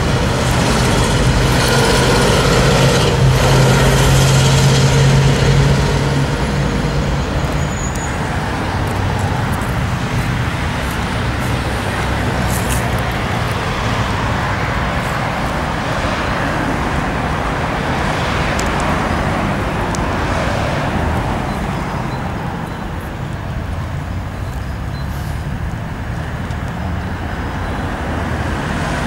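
Steady road traffic noise, with a low engine hum that is louder in the first few seconds and then eases off.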